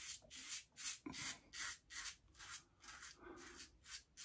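Razorock Stiletto safety razor scraping through facial stubble in short, quick, faint strokes, about three a second.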